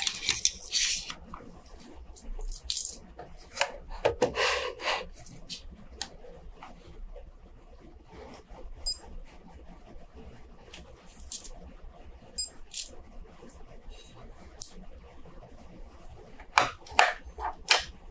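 Metal links of a Seiko diver's watch steel bracelet clinking and rattling in short bursts as the watch is handled and set down on a magnetism tester. Clicks of buttons being pressed on a timegrapher come near the start.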